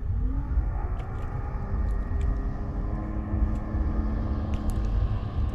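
A steady engine drone whose pitch rises a little at first and then holds, over a constant low rumble, with a few faint clicks.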